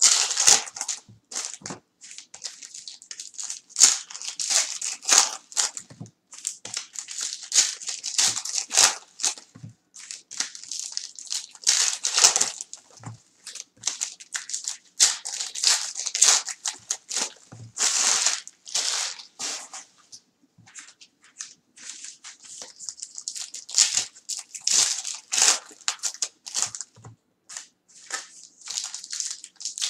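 Foil trading-card pack wrappers crinkling and tearing as packs are ripped open and handled, in quick, irregular crackles.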